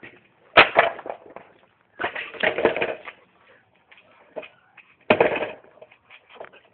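Skateboard clattering on hard ground: a sharp slap about half a second in, a second of rolling and rattling around two seconds in, and another loud slap just after five seconds.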